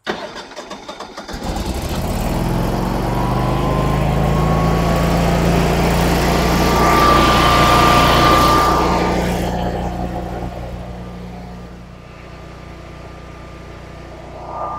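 Natural-gas Generac standby generator engine cranking for about a second, then catching and running steadily as it starts up automatically on loss of utility power. It grows louder toward the middle, with a thin steady whine, then eases off somewhat near the end.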